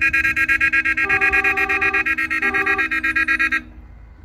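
Convoy cars sounding their horns. A car horn honks twice, first for about a second and then briefly, over a continuous, rapidly pulsing electronic horn tone that cuts out shortly before the end.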